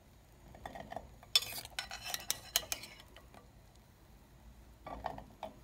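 A perforated metal skimmer clinking and scraping against a glass bowl and a porcelain plate as syrup-soaked fried dough balls are scooped out and slid onto the plate. There is a run of sharp clinks a little over a second in, and a few more near the end.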